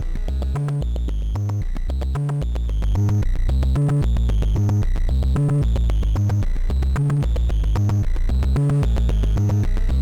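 Eurorack modular synthesizer jam: a sequenced bass line stepping between a few pitches, with short higher blips over it. It gets louder about three seconds in.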